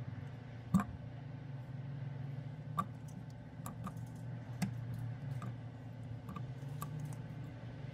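Strawberry and banana pieces dropped into a plastic blender cup: scattered light knocks and clicks, the loudest about a second in, over a low steady hum.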